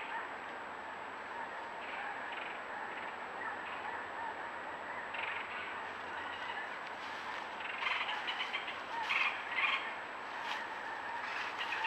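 Dense outdoor chorus of many small animal calls, growing busier and louder in the second half.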